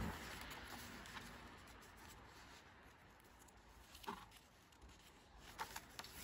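Faint paper rustling as the pages of an album photobook are turned by hand, with a soft page flap about four seconds in and another couple shortly before the end.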